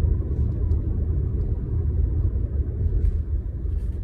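Steady low rumble, with a few faint clicks from handling the toy pieces.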